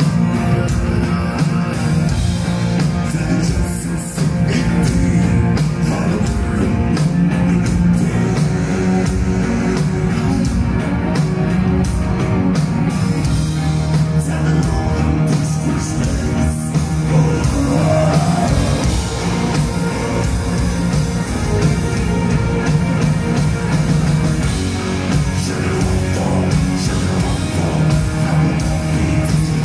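Mongolian folk-metal band playing live, heard from within the crowd: loud, steady rock with drum kit, electric guitar, a bowed horsehead fiddle and a sung lead vocal.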